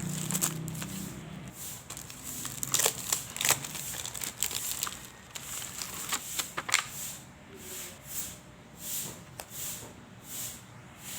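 Journaling paper being handled close up: crinkling and crackling with a cluster of sharp clicks, then a run of soft, evenly spaced swishes.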